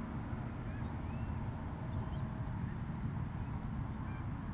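Steady low rumble of a Gulfstream G-IV business jet's engines as it lands, with a few faint, short bird chirps over it.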